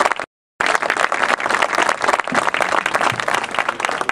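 Audience applauding, a dense steady crackle of many hands clapping; the sound drops out completely for a moment just after the start, then the applause carries on.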